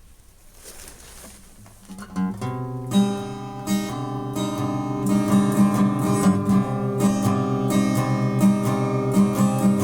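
Guitar starting to play after about two seconds of quiet: notes ring out, then a steady repeated strummed and picked pattern builds and grows louder.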